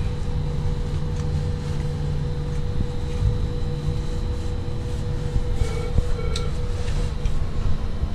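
Ship's engines and machinery giving a steady low rumble with a constant hum, heard from inside the wheelhouse.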